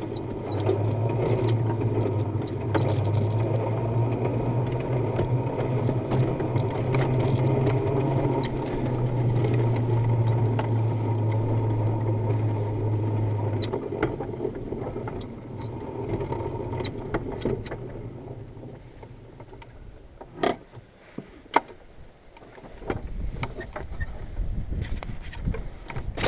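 A small vehicle's engine running steadily as it tows a train of carts loaded with firewood, with light clicks and rattles over the top. Just past halfway the engine drone stops and the sound dies away as the vehicle comes to a halt, followed by two sharp knocks.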